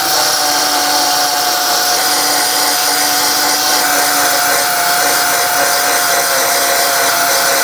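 Small belt sander running steadily, grinding fresh steel welds flat on a car door hinge: a constant gritty hiss over a steady motor whine.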